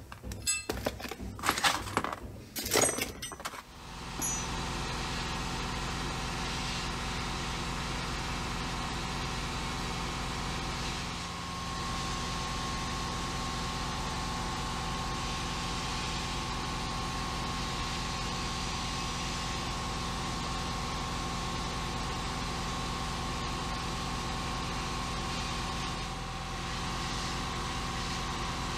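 Metal brake parts clink and knock as they are handled. From about four seconds in, a sandblast cabinet runs steadily: a continuous hiss of blasting air and abrasive over a constant motor hum, easing off briefly twice.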